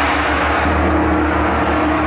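Several large hanging gongs played together, a steady sustained wash of shimmering overtones over a low, throbbing hum.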